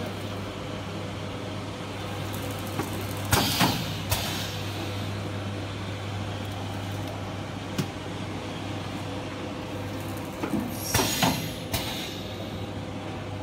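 L-type automatic shrink wrap machine running: a steady low hum from the shrink tunnel's fan and heater, with a few clicks and two short loud bursts of noise, one about three seconds in and one about eleven seconds in, from the machine's working cycle.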